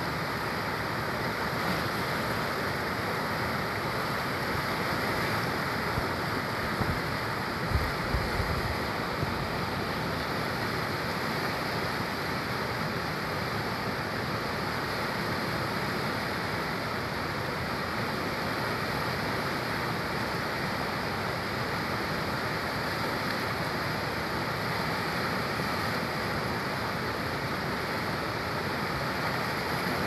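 Fast-flowing river rushing over rapids: a steady, even rush of water, with a few brief low thumps about a quarter of the way in.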